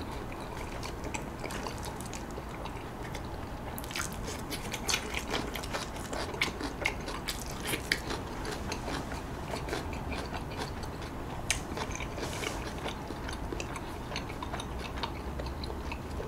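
A person chewing roast chicken with the mouth closed, close to the microphone: soft, wet mouth clicks and smacks, more frequent from about four seconds in.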